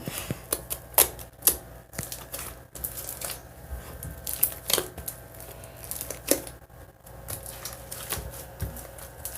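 Sticky slime being handled and pressed by hand, giving irregular sharp clicks and pops.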